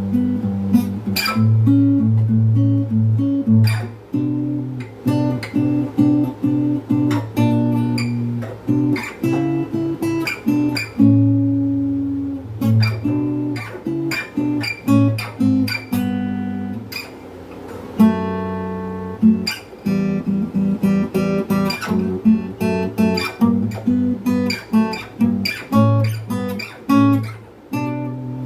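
Jasmine acoustic guitar tuned down to D, played unplugged: a run of picked notes and chords over ringing bass notes, with a short pause about eighteen seconds in.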